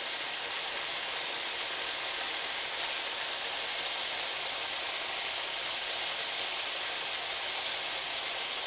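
Chicken breast sizzling in olive oil in a frying pan over medium heat: a steady hiss.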